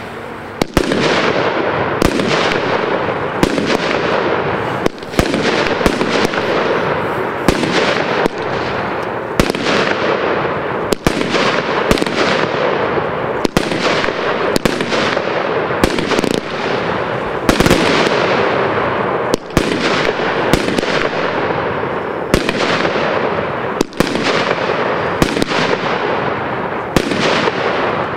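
Royal Fireworks 'Sun And Planets' fireworks cake firing shot after shot, a new shot about every one and a half seconds, each bursting into dense crackling so that the crackle runs on almost without a break.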